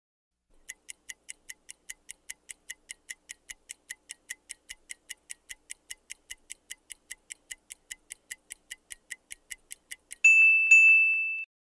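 Quiz countdown timer sound effect: clock-like ticking, about four ticks a second, then a loud steady high tone about ten seconds in, held for just over a second, marking time up.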